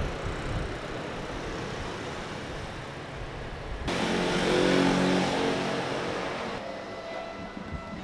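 City street traffic noise. About four seconds in, a louder motor vehicle engine runs for a couple of seconds, starting and stopping abruptly, then gives way to a quieter background.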